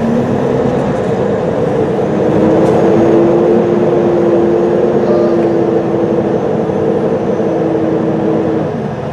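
A Peterbilt semi truck's diesel engine heard from inside the cab while driving slowly. It runs as a steady drone whose pitch steps up about two seconds in, creeps slightly higher, and drops away near the end.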